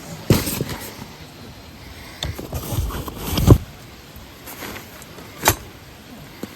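A few irregular knocks and thumps of gear being handled and set down, the loudest about three and a half seconds in and a sharp knock near the end.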